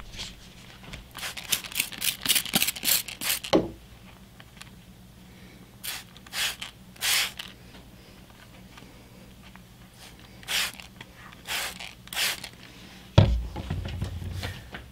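Plastic trigger spray bottle squirting water onto a whetstone to wet it, in short hissing spritzes: a quick run of about seven, then single squirts a second or so apart. Near the end comes a thump as something is set down on the wooden bench.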